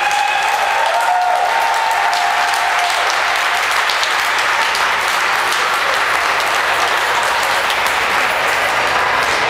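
Crowd applauding steadily, a sustained clatter of many hands clapping.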